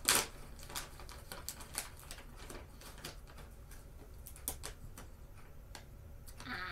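Small paper or plastic packaging being handled and opened by hand: a string of irregular soft clicks and crinkles, with one sharper click at the start.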